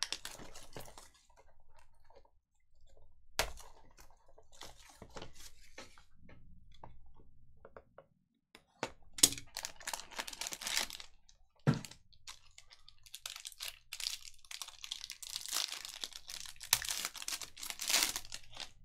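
A sealed box of trading cards being opened by hand: plastic wrapping tearing and crinkling and cardboard packaging rustling, with a few sharp snaps. The crinkling gets denser and louder over the last few seconds.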